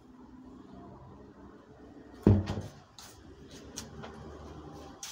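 A large tractor tire tipped over and slamming flat onto grass with one heavy thud a little over two seconds in, followed by a few lighter knocks.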